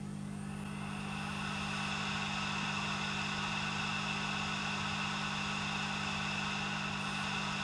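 Opened Western Digital 500 GB Green Power hard drive's spindle motor spinning the platters up and running at speed. The whine rises over the first couple of seconds and then holds steady over a low steady hum. The read/write head connector is unplugged, so the heads cannot move.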